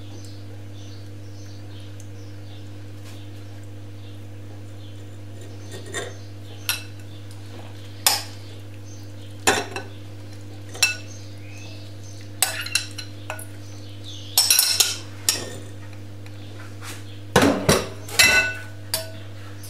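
A metal spoon, a glass bowl and a stainless steel mesh sieve clinking and scraping as soaked rose petals are scraped out of the bowl into the strainer. The clinks are sharp and irregular, starting about six seconds in and coming thickest near the end, over a steady low hum.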